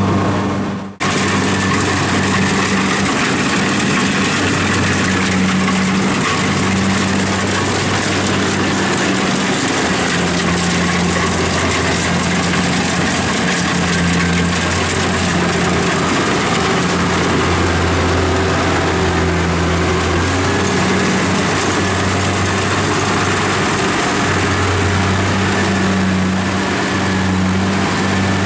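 Kubota combine harvester's engine running steadily under load while cutting rice: a low engine hum under a broad, even hiss. The sound cuts out briefly about a second in.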